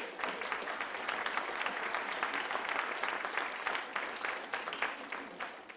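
A large audience clapping, a dense patter of many hands that dies away near the end.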